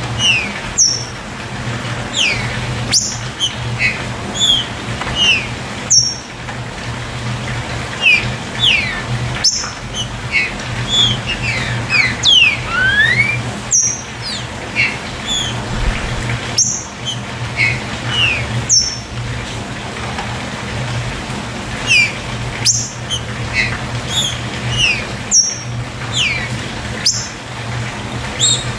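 Songbirds chirping: many short, quick whistled notes, mostly sliding down in pitch, several every second, with a sharp click every two or three seconds over a steady low hum.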